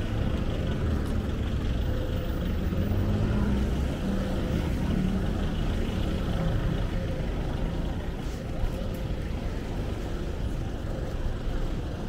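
Road traffic passing: vehicle engines and tyres making a steady low rumble that is heavier in the first half and eases off about seven seconds in.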